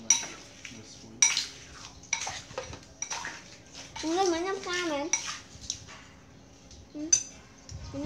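Spoons and cutlery clinking against plates and bowls while people eat, in sharp separate clinks about once a second. A wavering voice is heard briefly around the middle.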